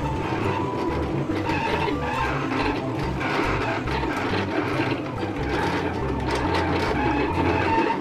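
Silhouette Cameo 3 vinyl cutter at work: its motors whir as the blade carriage moves side to side and the rollers feed the mat back and forth, cutting out stickers. Short whines start and stop at changing pitches as the motors step through the cut.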